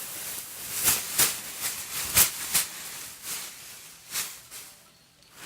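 Rustling and crackling over a steady hiss: a run of sharp, short crackles, loudest about two seconds in, thinning out and dying down near the end.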